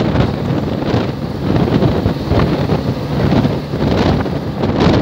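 Wind buffeting the microphone from a moving car, a loud, gusty rumble over the road noise of the car driving along.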